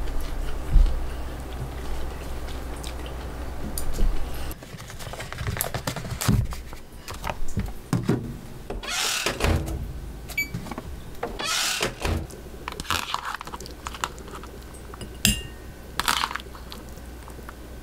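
Kitchen handling sounds: dishes and utensils set down and moved, with scattered knocks, clicks and short rustles. A steady low hum runs for the first four seconds or so, then stops.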